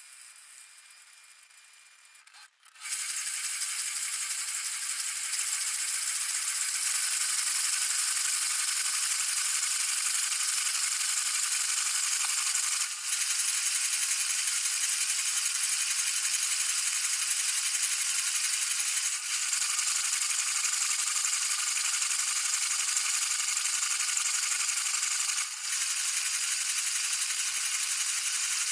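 Dishwasher wash cycle heard from inside the machine: water jets from the spray arms begin hammering on the dishes and the camera about three seconds in, a dense, steady spatter and rattle with brief dips about every six seconds.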